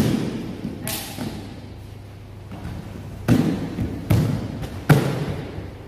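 Four sharp, loud thuds of bodies and feet hitting the floor during martial arts acrobatics and kicks: one at the start, one about a second in, and two closer together later on. Each echoes briefly in a large hall.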